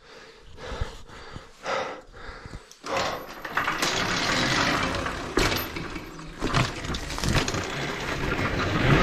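Electric dirt bike setting off and riding over dry forest ground. A few quiet scuffs come first. About three seconds in, a steady noise of tyres and wind starts, with crackling and a couple of sharp knocks from bumps.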